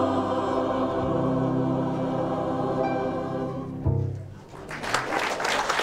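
Mixed choir holding a final sung chord with keyboard accompaniment, cut off just before four seconds in. Audience applause breaks out about a second later.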